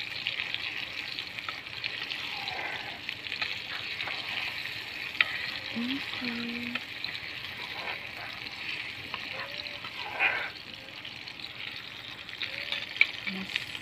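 Hot oil sizzling steadily in a frying pan as chopped vegetables are sautéed until fragrant over a wood fire, with a spatula stirring and clicking against the pan now and then; a sharp click about five seconds in and a louder brief scrape about ten seconds in.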